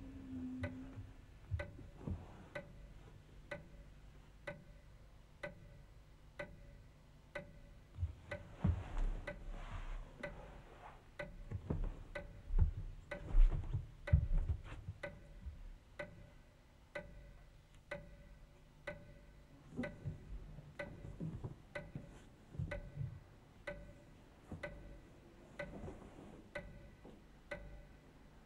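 Steady clock-like ticking, a little under two ticks a second, with scattered low thuds, most of them around the middle.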